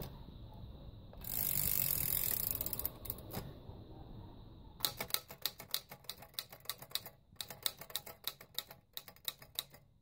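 Royal Standard manual typewriter: a loud rasping whir of about a second and a half, a couple of clicks, then from about halfway in a quick run of key strikes, typebars hitting the platen about four times a second.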